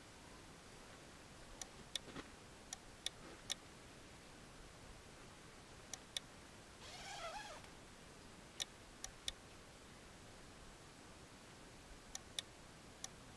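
Quiet background with about a dozen short, sharp clicks scattered irregularly, some in quick pairs, and one brief squeaky chirp about seven seconds in.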